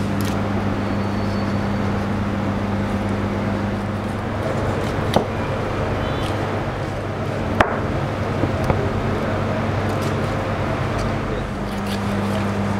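A knife cutting and trimming raw lamb shank on a hard work surface, with a few sharp taps of the blade, about three, over a steady low hum.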